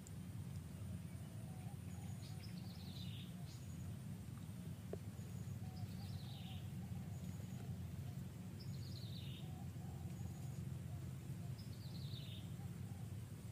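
Forest ambience: a bird repeats a short, high, falling call about every three seconds, with fainter chirps beneath, over a steady low rumble.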